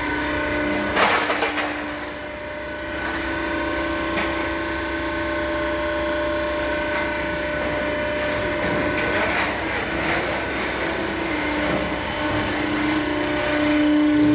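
Carton-making machine running with a steady motor hum and whine, with a brief clatter about a second in.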